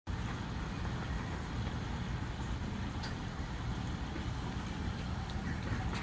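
Homemade vortex water fountain running, its motor giving a steady low hum and rumble.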